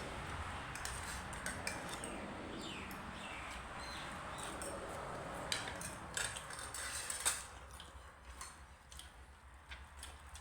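Cutlery clinking against a plate or bowl while eating: scattered sharp clicks, the loudest about seven seconds in, over a steady background noise that drops away soon after.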